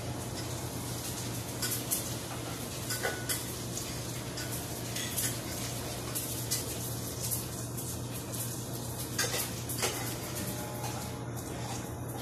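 Water boiling in a stainless-steel pot, a steady bubbling hiss over a low hum, with scattered light metal clinks at the pot as pieces of glutinous rice dough are dropped in one by one.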